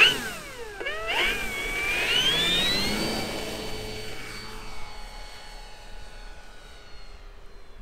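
Electric motor and propeller of a radio-controlled model airplane in flight, whining with the throttle. The pitch dips and jumps in the first second, climbs smoothly to a high steady whine about three seconds in, then fades slowly.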